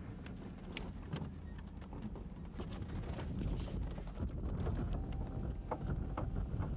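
Low rumble of a vehicle heard from inside its cabin, mixed with wind on the microphone, with scattered short knocks and clicks, a little louder in the second half.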